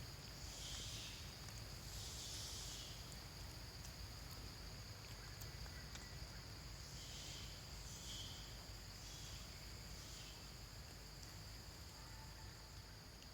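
Faint, steady high-pitched insect buzzing that swells in surges of about a second, several times, over a low background rumble.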